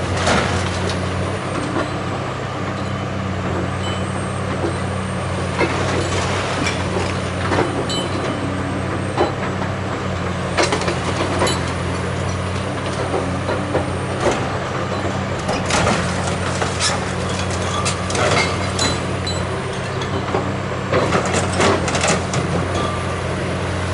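Caterpillar excavator's diesel engine running steadily under load while its demolition shear breaks up a brick wall, with irregular crunches, cracks and clatters of masonry breaking and falling. The crashes come in scattered clusters, loudest around the middle and near the end.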